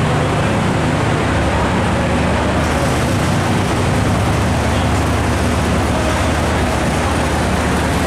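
Steady low rumble of vehicle engines running, holding level without a break or change.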